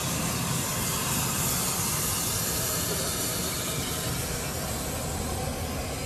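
Jet aircraft engines running: a steady rushing hiss with a rumble underneath and no change in pitch.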